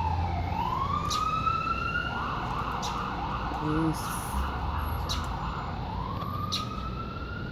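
Emergency vehicle siren going through its cycle. A slow wail falls and then rises, switches to a fast yelp for about three and a half seconds starting about two seconds in, then climbs back into a slow rising wail.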